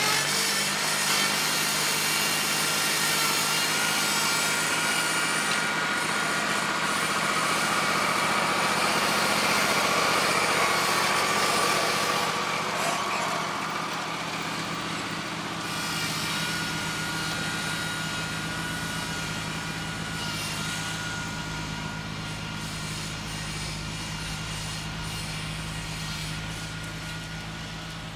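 John Deere 316 garden tractor's engine running under load as it pulls a moldboard plow through sod, with a steady whine. Past the middle the sound drops in level and a lower hum takes over.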